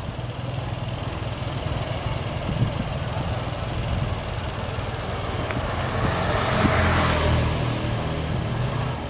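Motor vehicle engines on a road: a steady low engine hum, swelling as a vehicle passes close about six to seven seconds in, then easing off.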